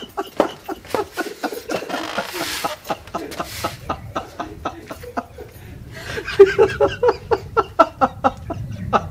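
Laughter in quick repeated bursts, louder in the second half.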